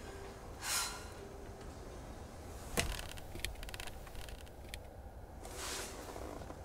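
A woman's breath rushing out sharply twice, once near the start and once near the end. Between the breaths come a sharp click and a quick run of fainter clicks, over a low steady hum.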